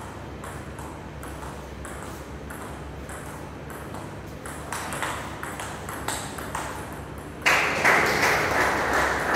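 Table tennis rally: the ball clicking back and forth off paddles and table, about two hits a second. About seven and a half seconds in, a sudden, much louder rush of noise sets in over the hits.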